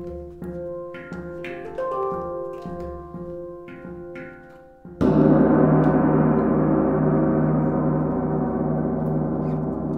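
Handpan played with the fingers, a slow run of single ringing notes about two a second. About halfway, a large gong is struck once: a sudden loud, shimmering wash with a deep hum that sustains and fades slowly.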